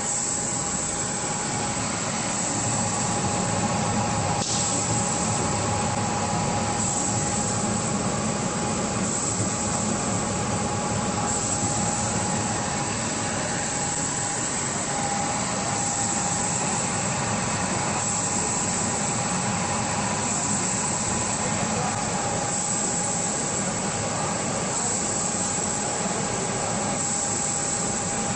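Full-servo automatic screen printing machine running: a steady mechanical hum and hiss with a constant high whine.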